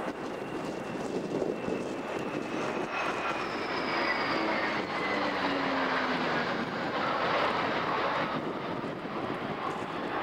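A mixed formation of US Navy carrier jets (F-14s, F/A-18s, A-6s and S-3s, with an E-2 Hawkeye) flies past overhead. The engines make a steady rushing noise that swells in the middle, with whines that fall in pitch as the formation goes by.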